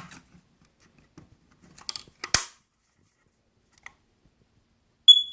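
Sharp plastic clicks from a First Alert battery-operated carbon monoxide alarm being handled, then near the end one short, shrill, high-pitched beep from its sounder as it is tried out.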